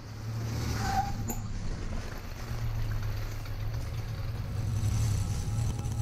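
1992 Toyota Pickup 4x4's engine running at idle, a steady low rumble, with a brief click about a second in.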